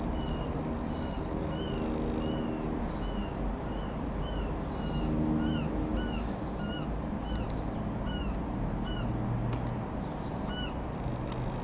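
Low steady drone of a Piper PA-28-180 Cherokee's four-cylinder piston engine passing overhead, with a bird calling a short falling chirp over and over, about twice a second.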